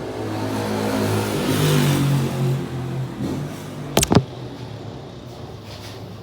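A motor vehicle's engine passing by, growing louder and then falling in pitch as it goes. Two sharp knocks come about four seconds in.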